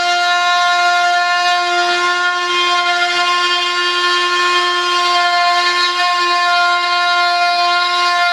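Dremel oscillating multi-tool running with a steady, high buzz as it cuts, its pitch wavering slightly now and then.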